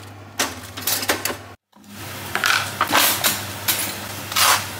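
A bread slice goes into a Breville toaster with a few soft clicks. Then a knife scrapes spread across crisp toast in a run of quick, loud scraping strokes, about two a second.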